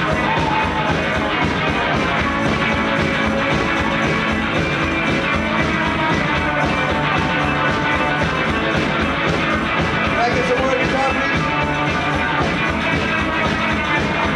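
A rock and roll band playing loud and without a break, with electric guitar over an even, driving beat.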